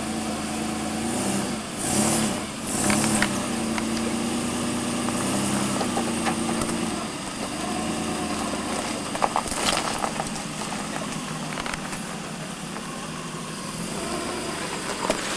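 Lifted Nissan SUV's engine revving up and down at crawling speed as it works over a rock ledge, with a few sharp knocks and crunches from the tyres and chassis on the rock.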